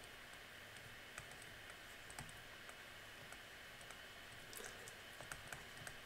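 Quiet room tone with a few faint, scattered clicks and taps from a stylus writing on a tablet screen.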